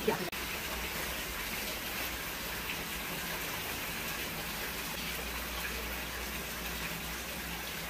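Hot water poured in a steady stream from a stainless steel kettle into a stockpot full of leaf-wrapped rice dumplings, splashing over them as the pot fills. A short knock sounds right at the start.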